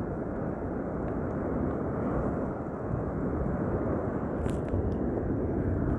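Steady rush of surf, small waves breaking and washing up a sandy beach.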